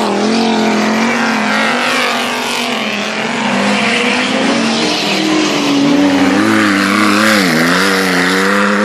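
Stock car engines running hard as several cars race past on a dirt track. Near the end the closest car's engine, a six-cylinder, dips in pitch and climbs again as it lifts off and accelerates.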